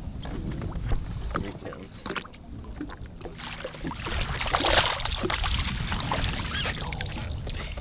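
Lake water splashing and sloshing as a landing net is dipped in and a hooked fish thrashes at the surface and in the net, loudest about four to five seconds in, over a steady low rumble.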